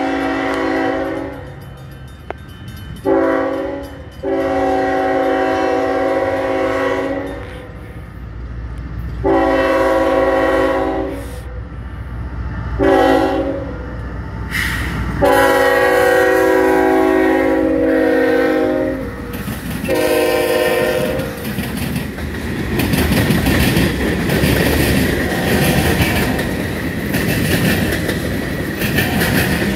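Freight train diesel locomotive's multi-chime air horn sounding a series of long and short blasts as the train approaches, the horn dropping in pitch as the engines pass about 20 seconds in. After that comes the steady rumble and clickety-clack of tank cars and freight cars rolling by.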